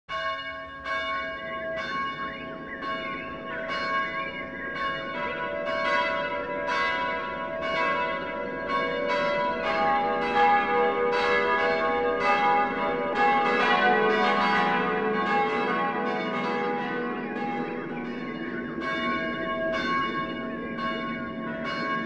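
A peal of church bells: several bells of different pitch struck one after another, about two strikes a second, their ringing overlapping and building to a fuller peal in the middle.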